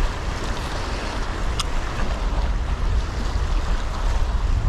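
Sea waves washing against shoreline rocks, with wind buffeting the microphone as a low rumble. One sharp click about one and a half seconds in.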